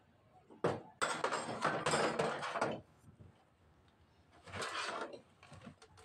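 Open-end spanner working a bolt on a hydraulic pump, with metal clinking and scraping against the pump casing. A sharp click comes about half a second in, then a couple of seconds of dense metallic rattle, and a shorter rattle later with a few clicks.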